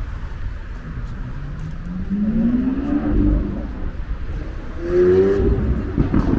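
Road traffic on a busy city avenue: a steady low rumble, with a vehicle engine accelerating past, its pitch rising, about two seconds in, and a second, louder one about five seconds in.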